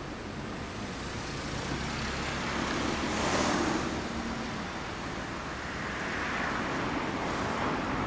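Ducati 749S's 90-degree L-twin engine idling steadily through a La Bellezza titanium full exhaust, with a louder rushing swell about three seconds in and another around six seconds.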